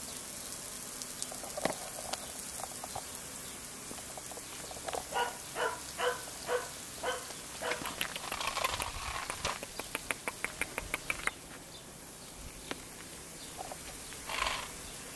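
Kerry Blue Terrier puppies playing: a string of about six short, evenly spaced high yaps midway, followed by a quick run of sharp clicks and one more yap near the end.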